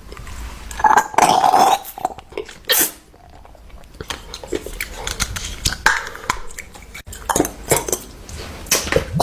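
Fidget toys being handled: irregular clicks, clacks and short rustling scrapes of hard plastic, with a brief squeaky sound about a second in.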